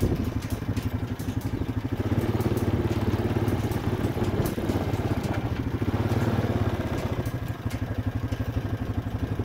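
Small vehicle engine running steadily at low speed, a low, even putter with some light rattling.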